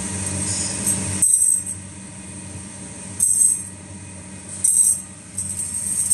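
Flat iron wire rings (2×10 mm strip) clinking and jingling against each other as they are handled, in four short metallic bursts. Under them runs a steady machine hum with a high whine, which drops off about a second in.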